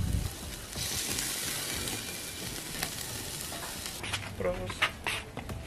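Spare ribs and sausages sizzling over hot charcoal on a kettle grill, a steady hiss. About four seconds in the sizzle cuts off, and a few sharp clinks follow.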